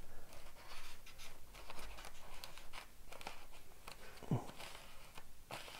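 Faint scattered rustling and scratching as fingertips press and smooth a damp coffee-filter paper patch onto a paper speaker cone. A brief low vocal sound about four seconds in.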